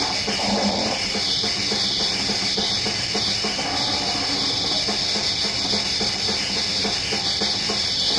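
Instrumental passage of a lo-fi black/death metal band rehearsal recording: distorted guitar and drums at a fast, even beat, about five or six strokes a second, under heavy cassette tape hiss.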